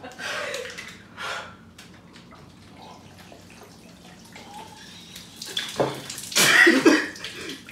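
Water from a plastic bottle poured over a man's head and face, splashing onto his shirt, along with his gasps. The sound is quiet through the middle, and the splashing turns loud about five and a half seconds in.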